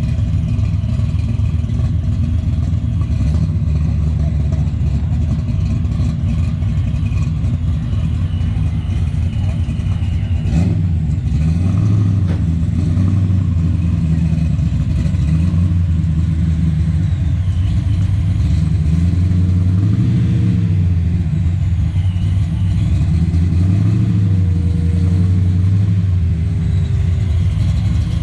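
Car engine running with a loud low rumble, revved up and let back down a few times.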